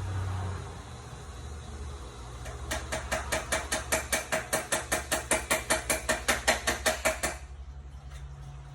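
A rapid, even series of light knocks or clicks, about six a second, starting a couple of seconds in and stopping abruptly some four seconds later, over a low steady hum.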